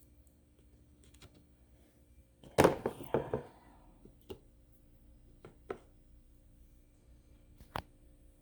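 Potatoes knocking into a container on a kitchen scale: a quick cluster of knocks about two and a half seconds in, then a few single knocks.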